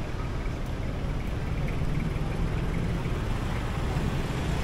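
Street traffic noise: vehicle engines running steadily.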